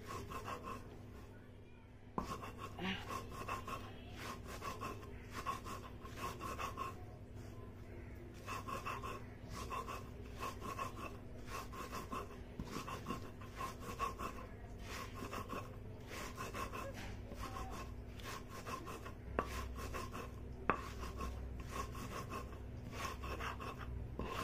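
A hand stone grinding salt with green chilli, red chilli and cumin on a flat grinding slab (sil-batta): rhythmic back-and-forth rubbing strokes of stone on stone through the gritty spice mix, with a couple of sharp knocks.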